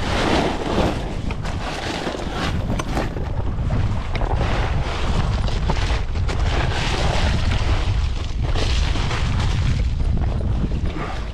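Wind buffeting the microphone over choppy sea water sloshing and splashing against the side of a kayak, the wash rising and falling in repeated surges.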